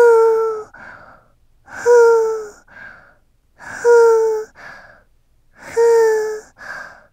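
A cartoon character's high, breathy voice going "fuu" to blow on a hot drink and cool it, four times about two seconds apart. Each long "fuu" dips slightly in pitch and is followed by a shorter, softer puff.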